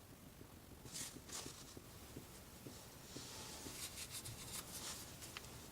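Faint drips and a soft trickle of engine oil falling from the drain-plug hole of a GM Ecotec four-cylinder's oil pan into a drain pan, as the draining slows from a stream to a drip.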